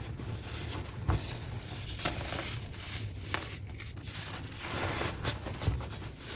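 Clumped baking soda being crushed: a continuous crisp crumbling and crackling, with a few sharper crunches standing out along the way.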